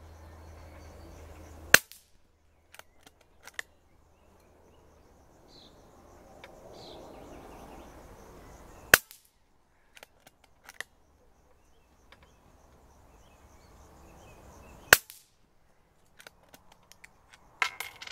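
Air rifle, freshly fitted with new springs, firing valve and hammer, fired three times at a steady pace about six seconds apart. Each sharp, cracking shot is followed by a few light clicks, and there is a further burst of clicks and knocks near the end.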